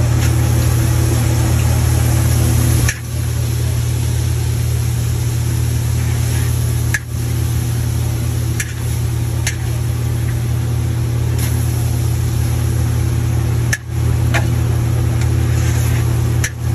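Steady, loud low machine hum at a wok stove while noodles are stir-fried, with a few sharp clicks of a metal spatula against the wok.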